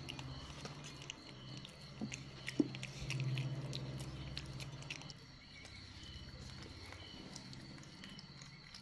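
Baby monkey chewing food, its mouth making many small quick smacking clicks, over a low steady hum.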